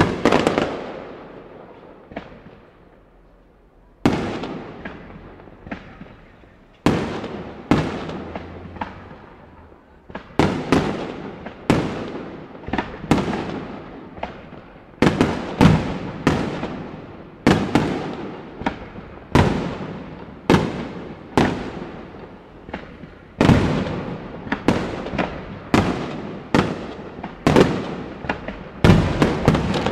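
Aerial fireworks shells bursting: sharp bangs, each trailing off in a long echoing rumble. They come a few seconds apart at first, then from about ten seconds in as a quicker barrage of one or two bangs a second.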